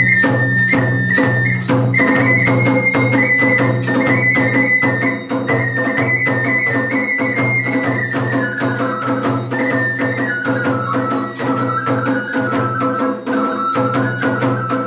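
Iwami kagura hayashi: a bamboo transverse flute (fue) playing a high melody that steps downward in pitch through the second half, over fast, continuous drum strikes and small hand cymbals.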